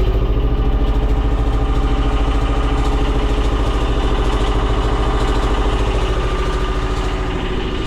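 Sailboat's inboard engine running loud and steady, heard close up in the engine room, with a fast even pulse. The exhaust clamp at the through-hull is leaking, spitting water and exhaust into the engine room.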